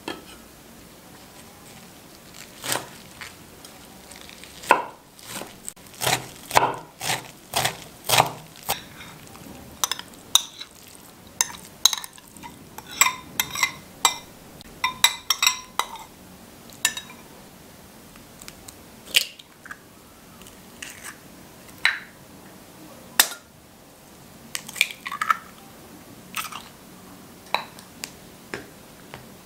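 A metal spoon and food knocking, clinking and scraping against a glass bowl while a chopped spinach, onion and herb filling is mixed: irregular sharp taps, densest in the first half and sparser later.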